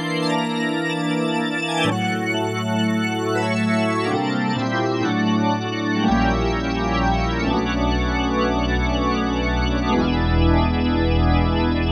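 Roland D-50 linear-arithmetic synthesizer playing a factory preset: held chords that change every two seconds or so, with deep bass notes coming in about six seconds in.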